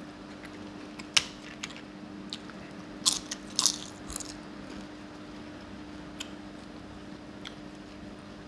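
Crisp roasted papad being bitten and crunched close to the microphone: one sharp crack about a second in, then a loud burst of crunching around three to four seconds in, with a few lighter chewing clicks after. A steady low hum sits underneath.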